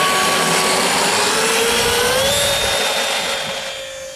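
Radio-controlled model Airbus A320's twin engines whining at full power on the takeoff run. The pitch rises about two seconds in, then holds steady and fades near the end as the model lifts off and climbs away.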